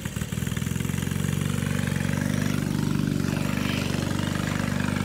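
A kid-sized go-kart's small engine running steadily, with a fast, even pulse.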